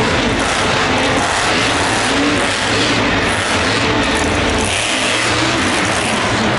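Monster truck's supercharged V8 running loud under heavy throttle, revving up and down continuously.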